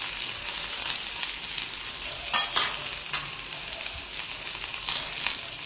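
Cut okra sizzling as it fries in hot oil in a non-stick pan, a steady hiss, stirred with a spatula that gives a few short scrapes against the pan.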